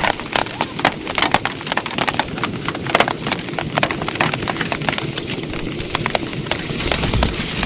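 Heavy rain hitting a tent: many sharp, irregular drop taps over a steady hiss.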